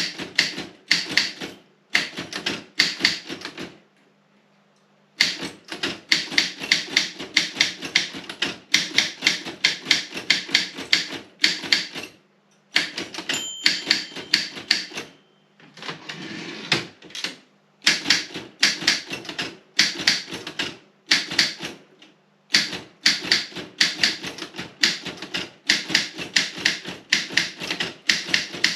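Robotron 20 manual typewriter being typed on quickly, the keystrokes coming in fast runs with short pauses. About 13 seconds in the margin bell rings once near the end of a line, and a longer rasping sweep follows a few seconds later, typical of a carriage return.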